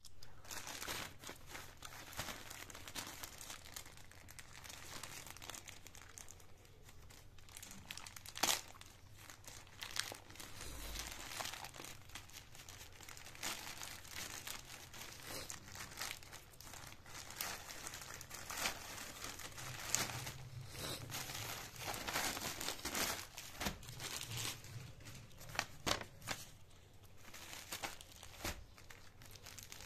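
Thin plastic courier mailer bag crinkling and being torn open by hand, then a clear plastic polybag crinkling as it is handled, with irregular sharp crackles throughout.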